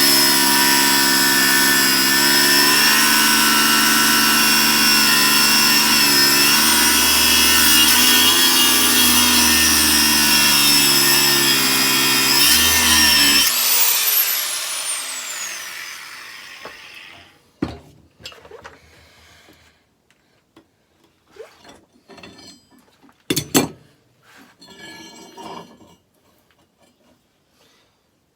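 Electric power tool cutting into the steel blade stock, running steadily, then switched off about thirteen seconds in and spinning down. A few scattered knocks and clinks follow.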